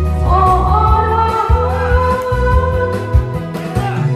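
A woman singing a Korean trot song into a headset microphone over an amplified backing track with a steady bass line, holding long, wavering notes.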